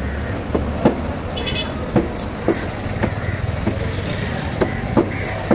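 A large knife chopping through yellowfin trevally flesh and bone into a wooden block, with sharp knocks about every half second to second. A steady low rumble of road traffic runs underneath.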